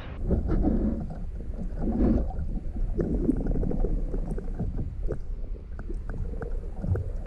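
Low rumble with gurgling water and scattered small knocks and clicks, as of water sloshing and being handled close to the microphone.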